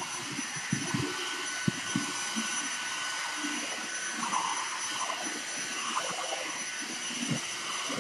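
Vacuum cleaner running steadily with a high whine, with scattered light knocks as the floor head is pushed over carpet.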